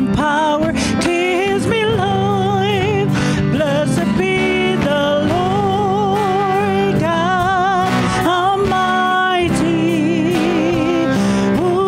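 A worship song played by a band, with a singer holding long notes with vibrato over steady sustained chords.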